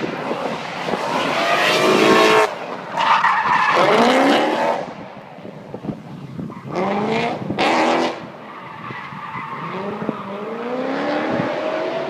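Drift car's engine revving hard in four rising surges as it slides, with tyres squealing on the asphalt. It is loudest in the first five seconds and again around seven to eight seconds in.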